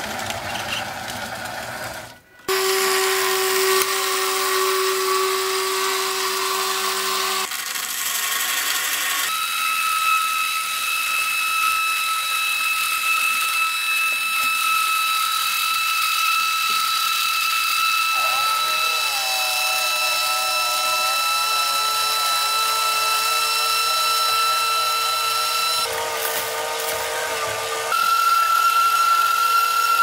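Small DC gear motors driving a cardboard model's conveyor belts, running with a steady high whine. There is a short drop about two seconds in, and the whine shifts pitch several times as the motors run.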